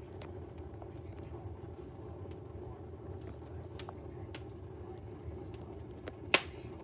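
Fire crackling: scattered sharp pops and snaps over a steady low rumble, with one loud pop near the end.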